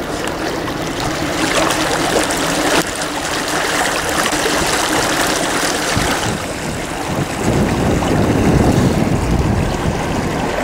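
Motorboat under way on open water: rushing water and wind noise on the microphone, growing into heavier low wind buffeting in the second half.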